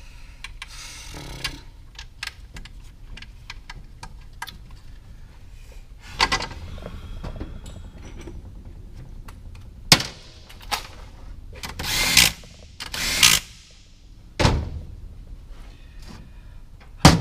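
Hand tools and metal manual-gearbox parts being handled: scattered clicks and knocks, a sharp click about ten seconds in, two longer scraping sounds a little later, and a heavy thud near the end.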